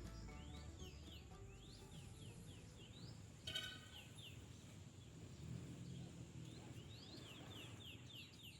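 Faint birds chirping: many short, quick rising and falling chirps, with one brief louder call about three and a half seconds in.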